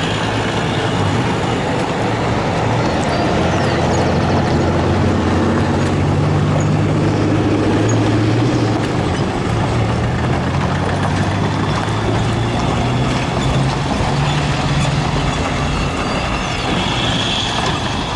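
Diesel train pulling away: the GM GT22 diesel locomotive's engine runs steadily, with the rumble of wheels on the rails, fading a little near the end as the train draws off.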